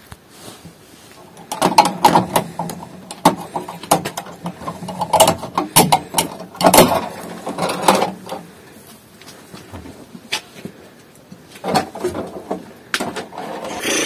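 Clicking, knocking and rattling as a wooden shed door tied shut with rope is unfastened and opened. The sounds are dense for several seconds, then thin out to scattered knocks.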